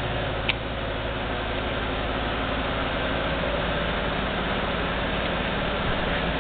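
Steady low machine hum, with one short click about half a second in.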